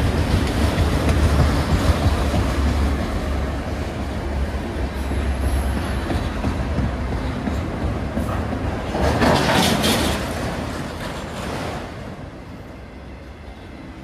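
Empty autorack freight cars rolling past, steel wheels rumbling and clacking over the rail joints. There is a brief louder surge of noise about nine seconds in, and the sound eases off near the end.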